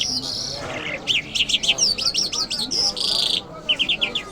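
Lark singing: a fast, varied run of high chirps and sweeping notes, with a quick trill of short repeated notes near the end.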